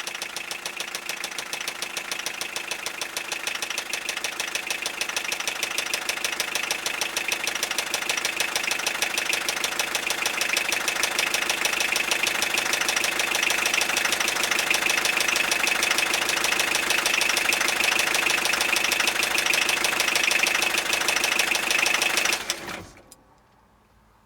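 Toyota 3C-TE four-cylinder turbodiesel running with a rapid, even knock, growing gradually louder, then shut off about 23 seconds in.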